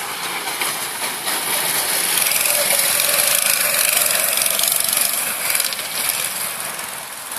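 Go-kart engines buzzing as several karts run round the track, growing louder in the middle and easing off near the end.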